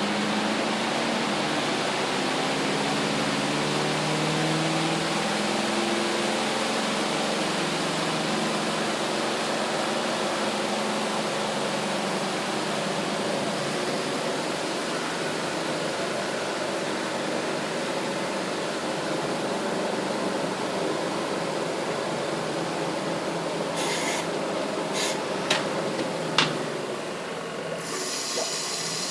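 Superbrite twin tub washing machine running, with a steady churning noise and a wavering low hum at the start. A few sharp clicks come near the end, then the sound changes to a higher hiss.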